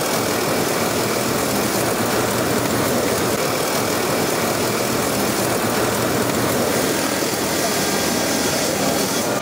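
Fiber laser cutting machine cutting sheet steel: a steady, even rushing hiss with no breaks or changes in pitch.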